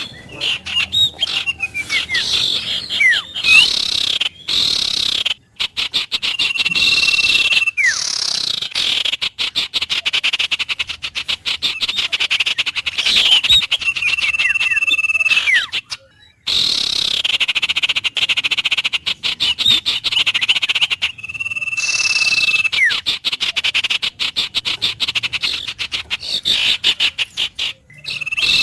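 A dense chorus of rapidly pulsing animal calls, with birds whistling over it: short falling whistles and a held high note that comes back every seven or eight seconds.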